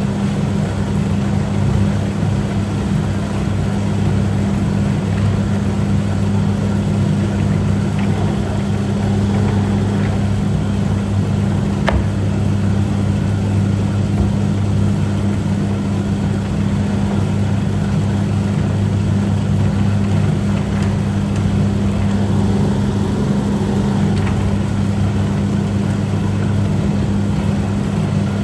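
Noodle-cutting machine running steadily, its motor giving a constant low hum, with a few faint clicks in the middle.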